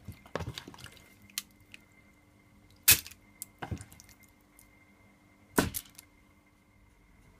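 Scattered sharp clicks and knocks with brief crinkling as cooked chicken pieces are moved about on a foil-lined tray. The loudest knock comes about three seconds in, and another comes near the end.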